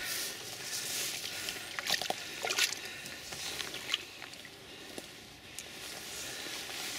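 Water sloshing and splashing around a landing net holding a brown trout in shallow stream water, with a few sharper splashes about two to three seconds in.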